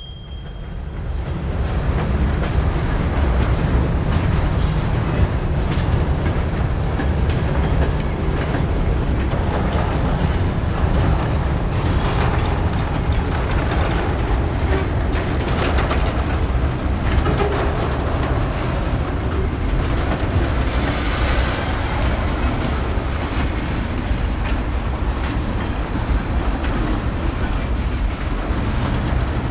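A train rolling past close by: a steady, heavy rumble of wheels on rail, with scattered clicks from the wheels over the track.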